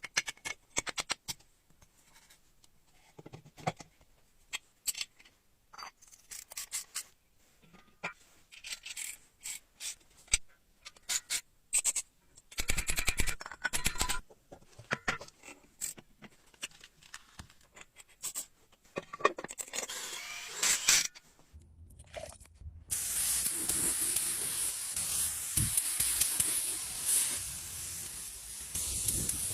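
Hand work on rusty bicycle parts: irregular scraping, rubbing and clicks of tools on metal, then a steady hiss for the last several seconds.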